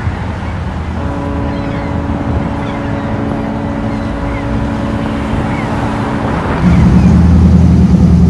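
Boat diesel engines running with a steady low rumble as the yacht manoeuvres, with a steady droning tone held for about five seconds. About two-thirds of the way through, the engine rumble jumps much louder and closer, with a pulsing beat.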